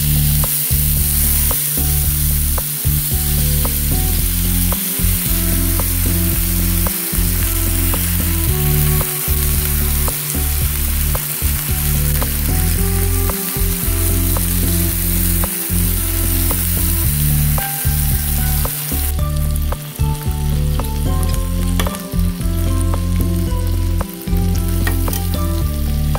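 Food sizzling in a hot pan or pot, a steady hiss with scattered sharp clicks, over background music with a low, stepping bass line.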